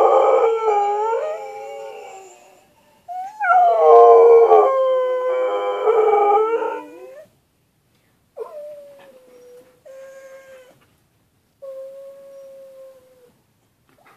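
Husky-type dog howling: two long, loud howls that bend up and down in pitch, followed by three shorter, quieter, steadier howls.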